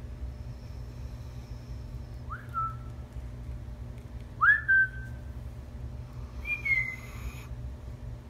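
Sleeping dog whimpering while it dreams: three short, high, whistly squeaks about two seconds apart, each rising quickly and then held for a moment, the middle one the loudest.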